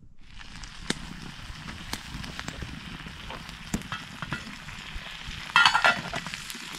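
Food frying in a pan over a wood campfire, a steady sizzle with scattered crackles from the burning wood. Near the end there is a short, louder metallic clatter as a steel pot lid is handled.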